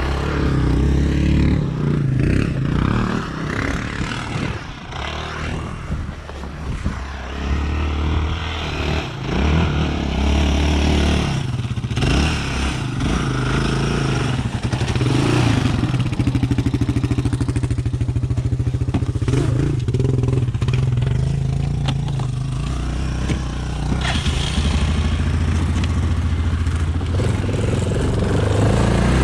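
Yamaha ATV engines running, single-cylinder four-strokes: the Grizzly 600 close by, with a Raptor 660 sport quad revving as it slides through the snow. The engine note rises and falls at times.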